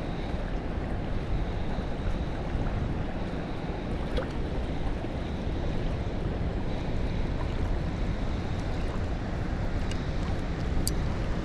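Steady wind noise buffeting the microphone, a low rushing with no break, with a couple of faint ticks.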